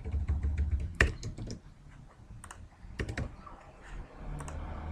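Computer keyboard typing: a few scattered, separate keystrokes over a steady low hum.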